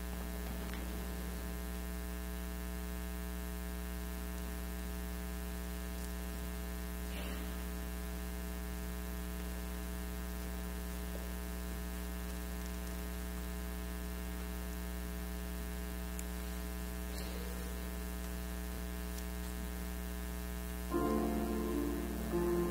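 Steady electrical mains hum from the church's sound system, a buzz with many overtones. About a second and a half before the end, keyboard music begins.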